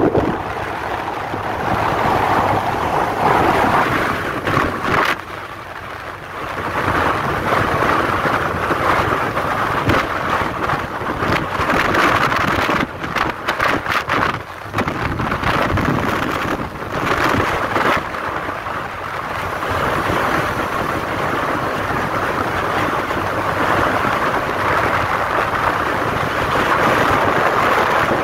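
Wind and road noise from a car driving at speed on a highway, with wind buffeting the microphone. It eases off briefly about five seconds in and turns gusty and choppy in a couple of stretches around the middle.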